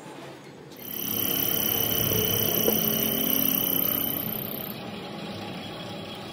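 An engine or motor runs for about three and a half seconds with a steady high whine over it. It comes up about a second in and dies down near the end.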